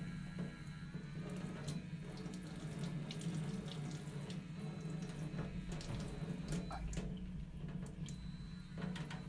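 Water running from a tap into a sink, with a steady low hum underneath and scattered small clicks.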